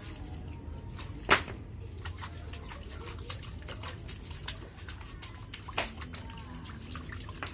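A small child's hands slapping and splashing shallow water in an inflatable paddling pool: a scattered run of sharp splashes, the loudest a little over a second in, over a steady low hum.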